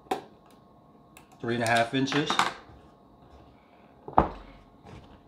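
A collapsible plastic prep tub handled on a wooden countertop: one sharp, loud plastic knock about four seconds in, with a small click at the start and a light tap near the end.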